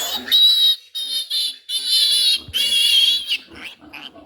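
Piglet squealing in four loud, high-pitched screams over about three seconds while handled for an Irovet injection, then a few faint rustles near the end.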